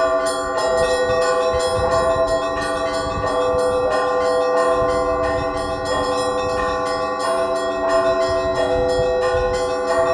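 Russian church bells rung by hand by a bell-ringer in a matins peal: rapid, even strikes over a steady wash of ringing tones, with no pause.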